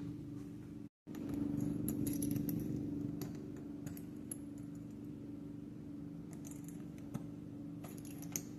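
Small metallic clicks and clinks from a screwdriver being handled against a doorknob, over a steady low hum, with a brief break about a second in.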